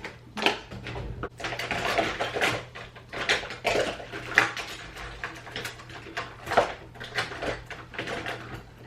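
Rummaging through makeup: small hard plastic and metal items, pencils and cases, clicking and clattering against each other in an irregular run.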